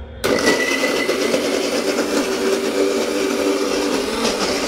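Electric mixer grinder with a stainless steel jar switched on about a quarter second in, its motor then running steadily while it grinds food.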